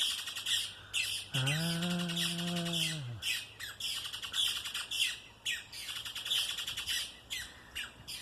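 A pair of small woodpeckers calling at their nest: a continuous run of short, shrill, squawky notes repeated several times a second. About a second in, a low steady humming tone holds for roughly two seconds underneath the calls.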